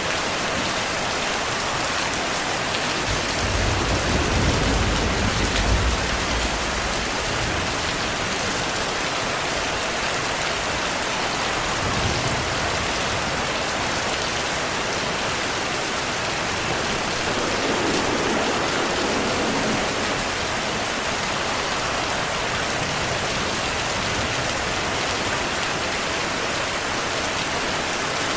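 Heavy rain falling steadily, with a low rumble of distant thunder rolling about three to seven seconds in.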